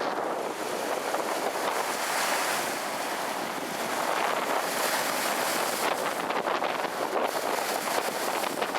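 Storm wind and rough Gulf surf: a steady rushing roar, with the wind buffeting the microphone.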